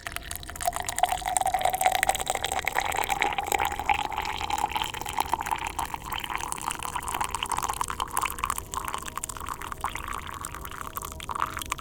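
A drink being poured steadily into a glass, the pitch of the filling glass slowly rising as the level climbs.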